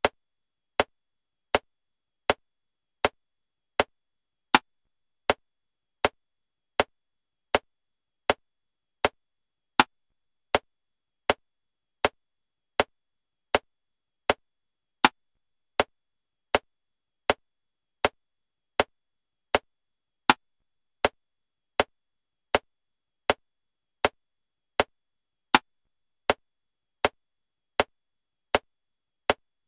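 Metronome clicking at 80 beats per minute, one sharp click every three-quarters of a second, with a louder accented click on every seventh beat marking 7/4 time.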